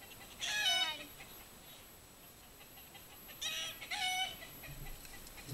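Rooster alarm calls: two short bouts of squawks falling in pitch, about half a second in and again around three and a half seconds in. It is the rooster's warning of a predator overhead.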